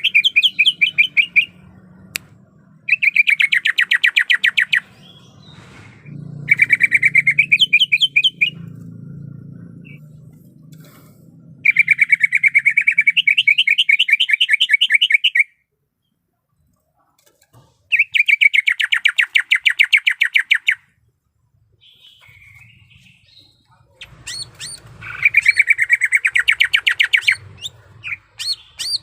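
Cucak ijo (greater green leafbird) singing in bouts of rapid, fast-repeated trilled notes, each a few seconds long, about six bouts with short pauses between.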